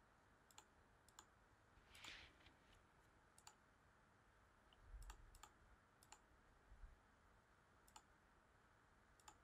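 Near silence broken by faint, scattered computer mouse clicks, about a dozen in all, with a soft rush about two seconds in.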